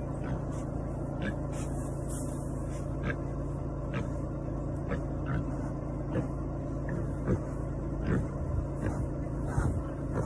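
A steady low engine rumble, like a motor idling, with a constant low hum. Short scattered clicks and rustles come over it, about one or two a second, more of them near the end.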